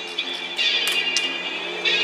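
Background music with a melody that steps up and down, and a couple of sharp cracks about a second in.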